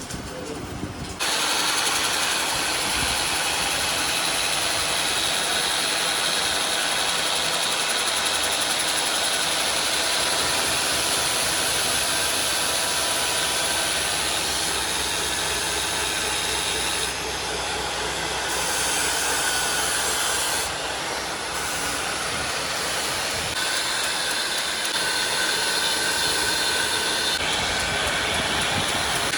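A workshop machine tool running steadily on metal: a continuous rasping noise with faint high tones, starting suddenly about a second in and dipping briefly twice.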